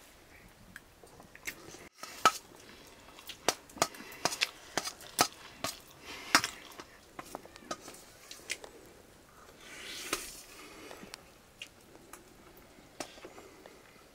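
Steel spoons clinking and scraping against steel plates as two people eat rice, in irregular sharp clicks with a short rustle about ten seconds in.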